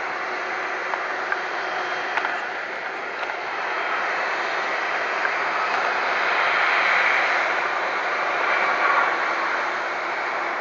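Boeing 757 jet engines on final approach: a steady rushing roar that grows louder as the airliner passes close, peaking past the middle, then easing as it reaches the runway.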